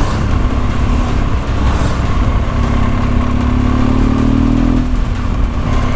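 Motorcycle engine pulling uphill under load, with a steady low rumble of wind over the microphone; the engine note climbs for a couple of seconds and drops away about a second before the end.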